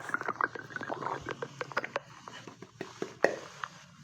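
Stomach gurgling: a quick, irregular run of small clicks, pops and short squeaks.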